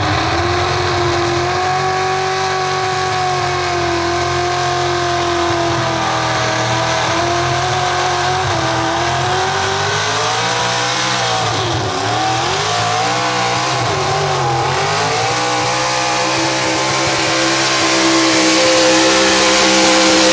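Modified 4x4 gas-class Chevrolet pickup's engine running hard at high revs, pulling a weight-transfer sled. The pitch holds steady, then sags and recovers twice about two-thirds of the way through, and the sound grows louder near the end.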